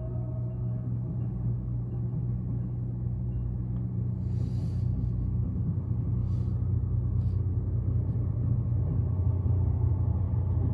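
Diesel locomotive of a Virginia Railway Express commuter train running with a steady low rumble, growing somewhat louder in the second half. A short hiss comes about four seconds in, with two fainter brief ones a little later.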